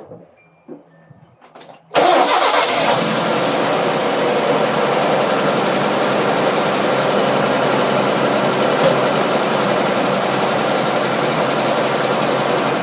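1995 Nissan D21 Hardbody pickup's engine starting suddenly about two seconds in and then running steadily at idle, just after a fuel filter change. A few faint clicks come before it starts.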